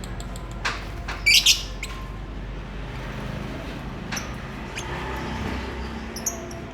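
Lovebirds chirping: two sharp, high-pitched chirps about a second in, the loudest sounds, then scattered small clicks and a few faint chirps.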